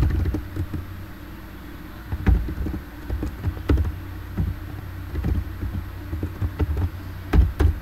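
Computer keyboard keys clicking in irregular keystrokes as code is typed, over a steady low hum.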